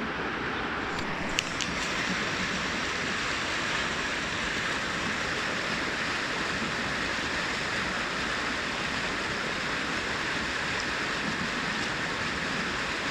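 Brook water running and cascading steadily, a constant rushing babble, with a few brief clicks about a second and a half in.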